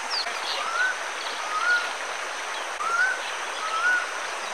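Nature ambience: a steady rush of running water, with a bird repeating a short rising whistle four times, about once a second, and fainter high chirps.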